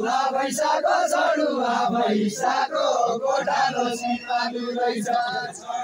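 A group of men singing a Deuda folk song together in a chanting style, many voices overlapping.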